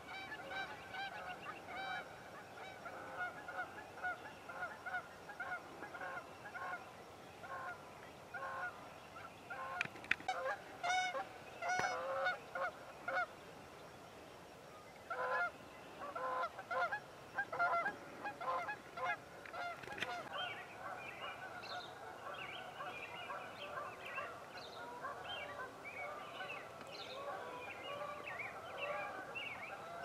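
A flock of geese honking, many calls overlapping in a steady chorus, with louder honks near the middle.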